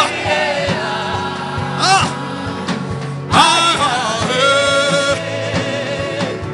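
Gospel worship music: a voice sings long, wavering held notes over instrumental backing with a steady beat.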